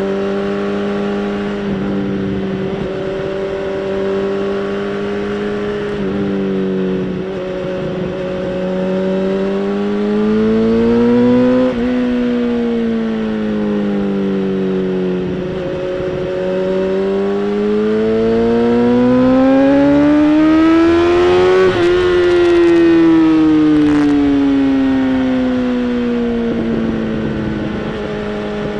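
2011 BMW S1000RR inline-four with a Bodis aftermarket exhaust running on the road. The engine note climbs under throttle twice, the second time longer and louder, peaking a little over twenty seconds in, then falls away steadily as the bike slows.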